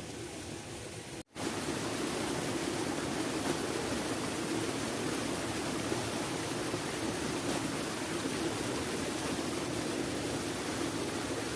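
A steady rushing noise, louder after a brief dropout about a second in.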